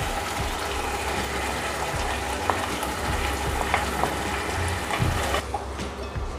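Onion paste frying in ghee in a kadhai: a steady sizzling hiss with a few faint clicks. The higher part of the hiss drops away about five seconds in.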